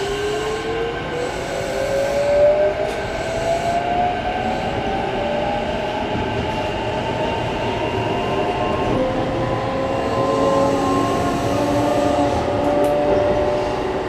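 Sanyo Electric Railway 6000 series electric train heard from inside the car as it accelerates: the inverter-driven traction motors whine in several tones rising together, with a new, slower-rising tone taking over about nine seconds in, over the steady running and rail noise.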